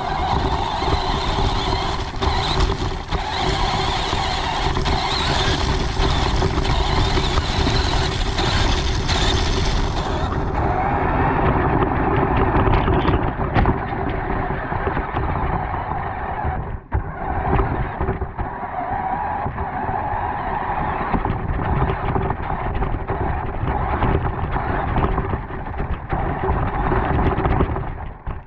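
RC car's motor and drivetrain running with a steady whine as it drives over wet grass, with a rushing, rattling noise of tyres and body picked up close from on board the car. The sound dips briefly about two-thirds of the way through.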